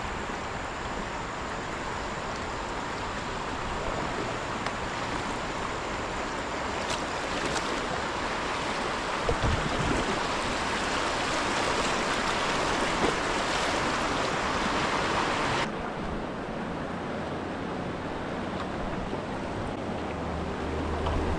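Whitewater rushing through a river rapid: a steady hiss of moving water that builds midway and drops off abruptly about three-quarters of the way through. A single dull thump sounds about halfway.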